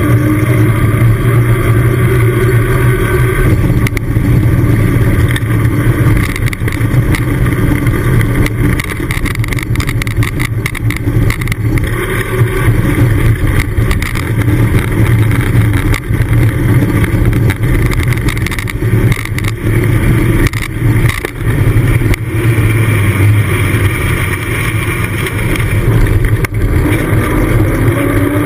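Wind buffeting the microphone and tyres rolling on tarmac during a fast bicycle descent, a steady low rush broken by frequent knocks and rattles from bumps in the road.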